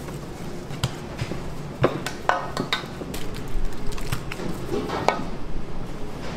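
Food-prep handling sounds: scattered light knocks and clinks of dough and gloved hands against stainless-steel trays and counter, over a steady low kitchen machine hum.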